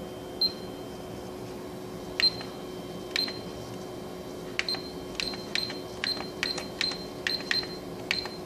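Canon copier's control panel giving a short high beep with a click at each key press as an IP address is typed in on the numeric keys. There are about a dozen presses, a few spaced out at first and then coming quickly, two or three a second, in the second half, over a steady faint hum.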